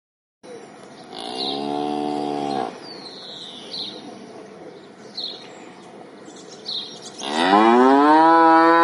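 Cow mooing twice: a shorter moo about a second in, then a louder, longer moo that rises in pitch near the end. Short high chirps sound faintly between the two moos.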